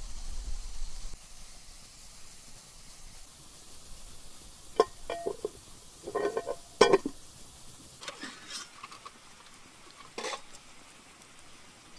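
Metal camp cookware knocking and clinking, pots, lid and cup handled and set down. Sharp metallic knocks with a short ring come in a cluster about five to seven seconds in, then lighter clinks follow.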